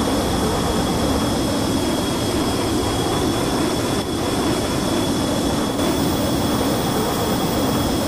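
Steady jet engine noise: a constant rumble with a high-pitched whine held over it.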